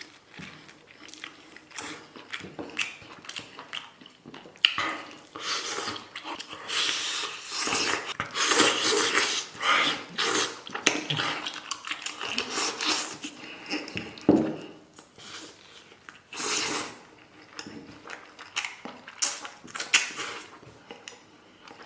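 Close-up eating sounds of chicken leg and noodles: chewing, smacking and slurping, with small clicks and clinks. The slurping and chewing are densest around the middle.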